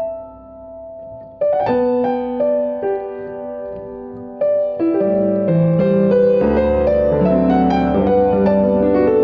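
Piano playing a slow melody: a few struck chords left to ring at first, then a fuller passage of quicker notes, with low bass notes coming in about six and a half seconds in.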